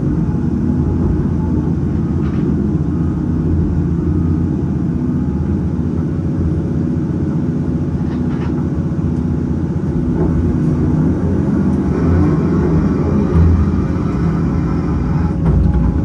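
Diesel engine of a Cat 568 log loader running steadily, a low rumble heard from inside the operator's cab, with a few faint clicks.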